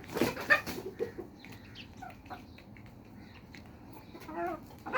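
Chickens clucking, with a flurry of loud sharp noises and short calls in the first second, then scattered clucks and clicks.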